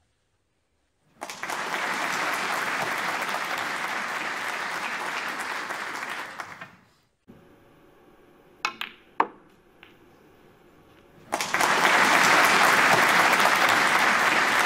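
Applause for about five seconds, then a few sharp clicks of a snooker cue striking the cue ball and balls knocking together, followed by louder applause.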